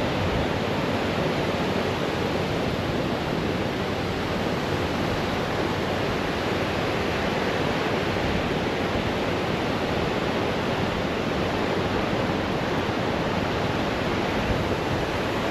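Steady noise of sea surf breaking on a beach, the sea rough.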